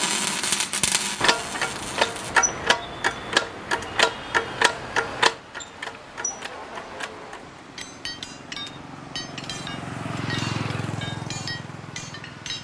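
Repeated hammer blows on metal, about two to three sharp strikes a second with a brief ring. They go on loudly for about five seconds, then turn to lighter, scattered taps.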